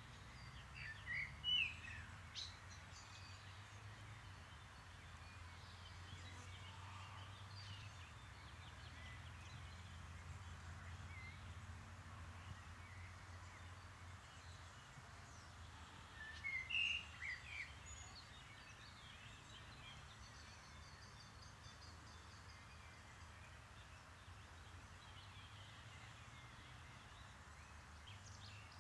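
Wild birds calling over faint steady background noise: two short bursts of quick chirps, one just after the start and one about halfway through, with a few faint scattered chirps in between.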